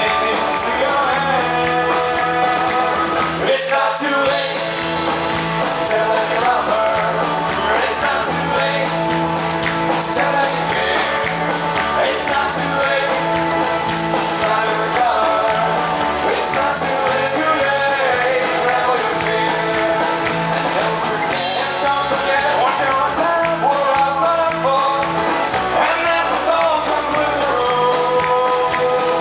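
Live Celtic folk-rock band playing, with banjo, acoustic guitar, electric bass and fiddle.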